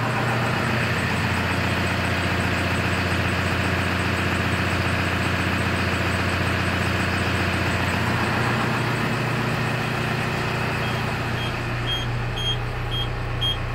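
Diesel engine of an all-terrain crane idling steadily. From about eleven seconds in, a short high electronic beep repeats about twice a second.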